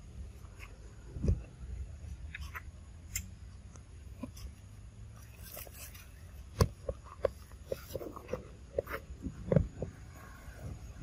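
A group of macaques and their babies handling and grooming one another: soft scattered clicks, rustles and brief small sounds, busiest in the second half, over a low steady rumble.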